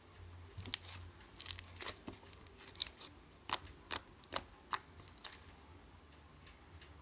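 Slime being squeezed and poked by hand: about a dozen sharp, irregular pops and clicks over a few seconds, then they stop.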